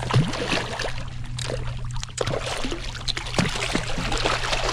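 Hooked redfish thrashing at the surface beside a kayak: a run of irregular splashes and sloshing water.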